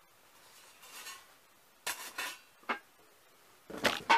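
Cookware clinking and knocking as the square Copper Chef pan is handled and set down: a few separate sharp knocks, then a quick cluster of knocks near the end. A faint rustle comes about a second in.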